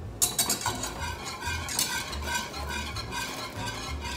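Wire whisk stirring just-boiled milk in a metal saucepan, scraping in quick repeated strokes about three times a second, as quick-cooking grits are poured in.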